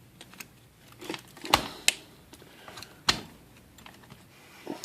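Scattered sharp clicks and knocks of plastic and metal as a new power cord's strain relief is worked into place in an electric typewriter's frame, loudest about a second and a half in and again about three seconds in.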